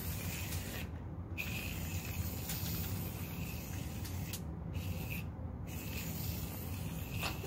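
Aerosol can of foaming shaving cream hissing as it sprays foam, stopping briefly three times between squirts.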